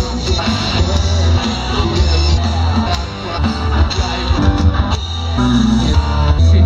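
Rock music with guitar, drum kit and a heavy bass line playing an instrumental passage without vocals.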